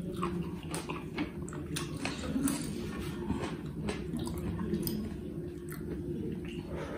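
Wet mouth smacks and sucking as fingers are licked clean after eating with the hands, then fingers wiping gravy off a tilted plate, in many short clicks and smacks.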